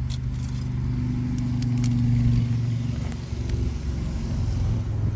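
Steady low hum of a car engine idling, with a few faint clicks and rustles.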